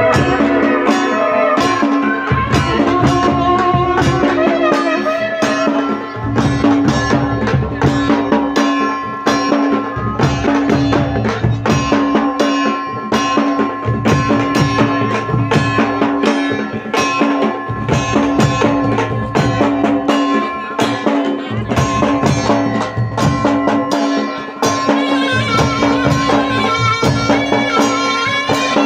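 Traditional Himachali folk band playing: dhol drums beat a dense, steady rhythm under a reedy wind melody, with a held drone note throughout.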